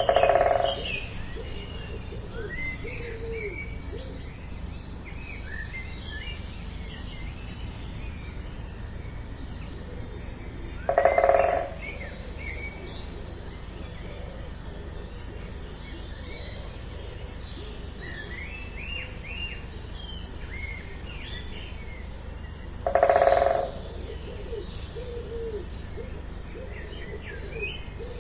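Great spotted woodpecker drumming: three short, rapid rolls on wood, each under a second and about twelve seconds apart. Small birds chirp faintly between the rolls.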